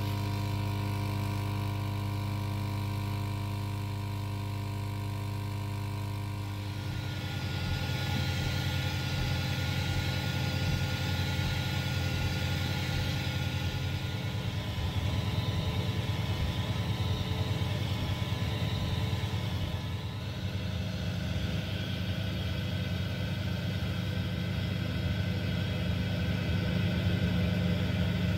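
Air assist pump of an xTool M1 laser running with a steady hum. About a quarter of the way in, a louder hiss and whir joins it as the laser cuts birch plywood, and this runs on steadily.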